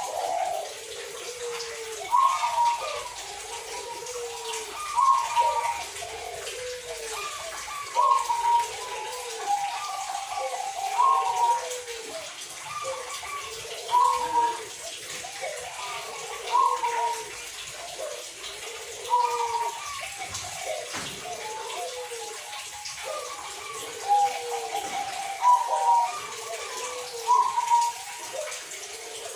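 Zebra doves (perkutut) cooing, a short bubbling phrase repeated every two to three seconds.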